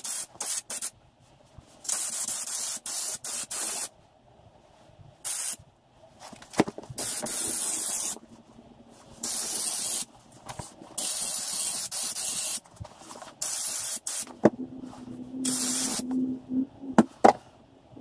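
Air-fed stone chip spray gun at about 60 PSI hissing in repeated short bursts of one to two seconds, about eight in all with pauses between, as it spatters Upol Gravitex stone chip onto the car's sills.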